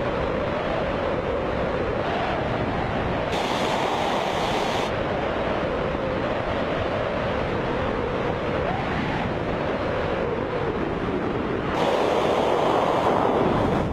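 Air rushing over a head-mounted camera's microphone during a BASE jump's flight, steady and full, with a wavering whistling note in it. It turns louder and hissier for a second or two about three seconds in, and again near the end.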